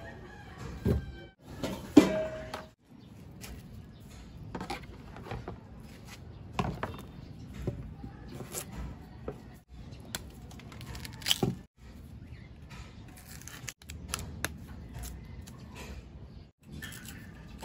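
Knife cutting and peeling raw cassava roots on a wooden plank: scattered knocks as the roots are set down and cut, the loudest about two seconds in, with scraping and tearing as the thick skin is sliced and pulled away.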